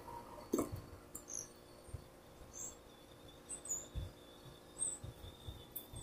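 Faint background: a thin steady high tone, a few short high chirps, and soft low thumps scattered throughout. No steady condenser fan or compressor hum stands out.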